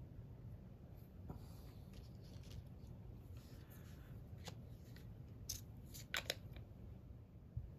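A handful of light clicks and taps from small 3D-printed plastic oil drums and relay boxes being set down on a paper-covered work surface, the sharpest a quick pair about six seconds in, over a low steady hum.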